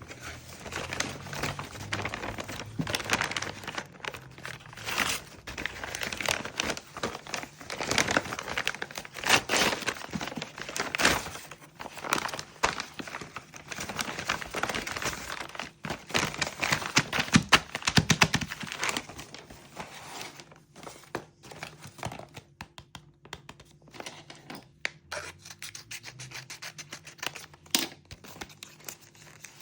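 Packaging being crinkled and torn open by hand, a long run of irregular rustling and tearing that thins out into scattered crackles in the last third.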